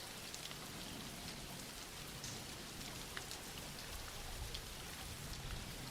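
Steady soft rain falling, an even hiss with scattered faint drop ticks.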